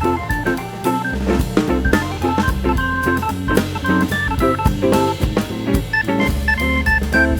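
Background music: an upbeat track with organ, bass and a drum kit keeping a steady beat.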